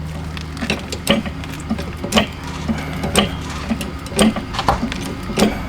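Car jack being cranked up under the car: sharp metallic clicks about twice a second over a steady low hum.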